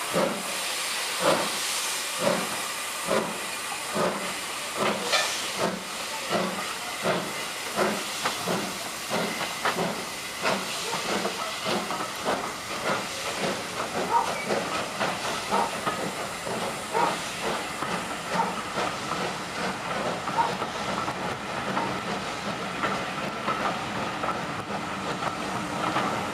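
Two Southern Railway steam locomotives, U class No. 1638 and S15 class No. 847, double-heading a train away from a standstill. Their chuffing exhaust beats start about one a second and quicken as the train gathers speed, over a constant hiss of steam.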